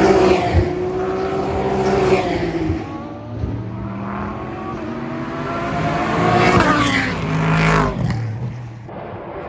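Race cars passing at speed on a circuit. One engine note drops in pitch and fades as the car goes by in the first few seconds. A second car then approaches, its engine note rising and getting louder until it passes about seven to eight seconds in.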